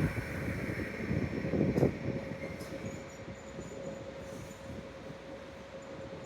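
Limited express electric train in the Green Yakumo livery (a JR 381 series) pulling out of a station: a rumble of wheels and running gear with a steady motor tone, a sharp clank about two seconds in, then growing quieter as the train moves away.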